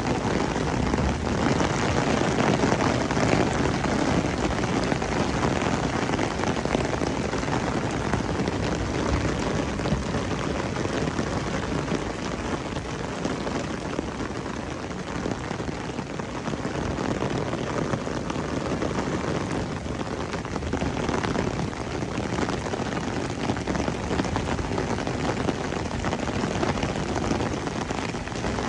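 Heavy rain pouring down steadily, a dense even hiss with a deeper rushing underneath.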